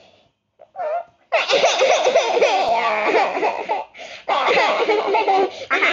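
A cartoon character's long, wordless vocal outburst, wavering up and down in pitch, from about a second in. After a short break, it starts again and carries on toward the end.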